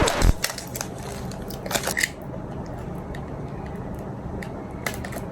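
A mailed package being handled and opened by hand: a short rustle at the start, another crinkly burst just under two seconds in, then a few scattered small clicks.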